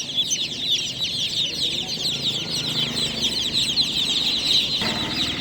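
A crowd of newborn chicks peeping loudly together, a dense, unbroken chorus of high, falling cheeps. A lower background noise comes in near the end.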